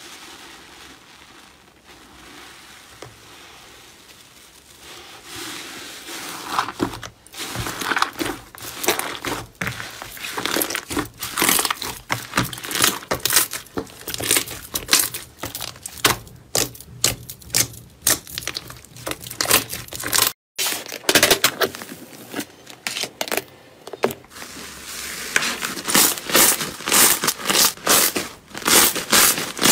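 Slime being pressed, squeezed and kneaded by hand, giving rapid crackling and popping of trapped air. It is soft for the first few seconds, then thick, dense crackles follow, with a brief gap about twenty seconds in.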